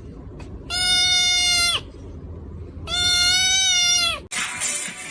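An animal gives two long, steady, high calls, each about a second long and dropping in pitch at the end, then a short burst of hiss.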